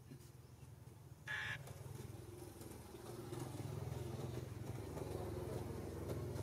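A steady low engine rumble, growing a little louder after about three seconds, with one short high squeak about a second in.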